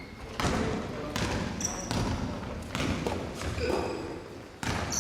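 A ball hitting the floor of a sports hall four times at uneven intervals, each thump ringing in the hall, with players' voices underneath.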